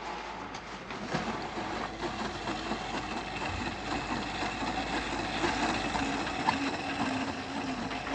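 Small motorised or clockwork toys running, a steady mechanical whirring with many small clicks.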